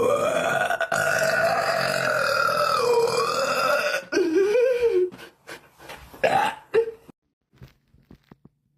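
A woman's long, drawn-out burp lasting about four seconds, its pitch wavering up and down, followed by two shorter burps. A few faint clicks near the end.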